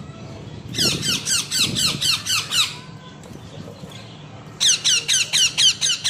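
Young parakeets squawking in two bursts of rapid, harsh, repeated calls, about five a second, each call a quick falling note. The first burst starts just under a second in and stops a little before the halfway point, and the second starts near the end.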